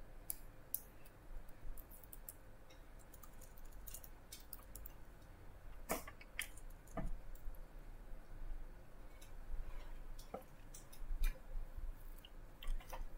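Irregular clicks of a computer mouse and keyboard, singly and in short runs.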